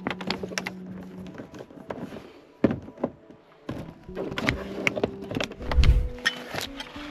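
Objects being rummaged through on a truck cab's overhead shelf: rattling clicks and taps of a cable and plastic bottles being moved, with a lull partway through and one heavy thump about six seconds in.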